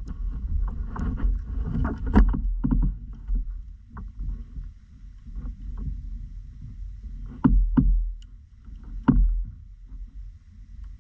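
Handling noise in a kayak: a dry bag rustling and irregular clicks and knocks against the hull as a camera is pulled out of the bag. There are three louder thumps in the second half.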